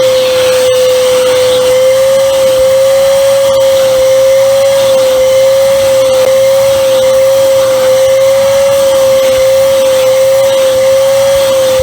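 Corded, bagged handheld vacuum cleaner running steadily, its motor giving a high, steady whine that wavers slightly in pitch over a rushing of air.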